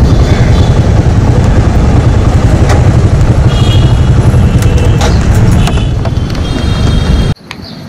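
Motorcycle running while being ridden and pulled up to park, a loud steady low rumble that stops abruptly about seven seconds in.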